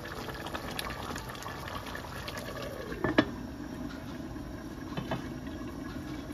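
Beef curry bubbling and spitting as it simmers in a pot, with scattered small crackles. About three seconds in a glass lid is set on the pot with a sharp clink, the loudest sound, and the bubbling goes on under the lid.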